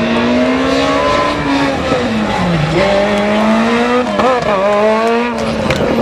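Rally car engine at full throttle on a special stage. Its pitch climbs, drops sharply about two seconds in and again just after four seconds, then climbs again, with a few sharp cracks near the end.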